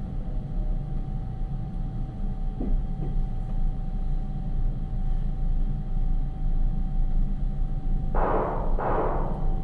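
Low, steady rumble of a train carriage, with a constant mid-pitched hum over it. There are two faint clicks about three seconds in, and two short hissing bursts near the end.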